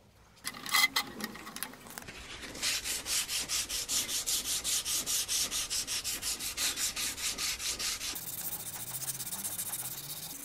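Sandpaper rubbing back and forth by hand on a stabilized cork knife handle, in quick even strokes about five a second, after a few louder scrapes about a second in. Near the end the strokes blur into a softer, steady rubbing.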